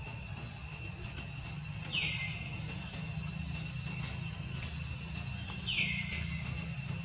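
Two short high-pitched animal calls, each sliding down in pitch, about four seconds apart, over a steady high-pitched whine.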